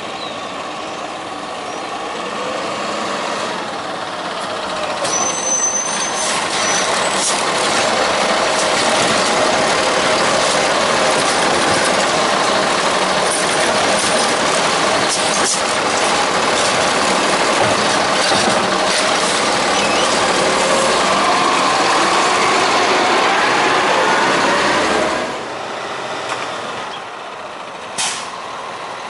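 Peterbilt 520 garbage truck with a Heil STARR side-loader body pulling up close by, its engine running loud and revving up and down, with a brief air-brake squeal about five seconds in. Near the end the sound drops suddenly to the quieter running of the truck further off.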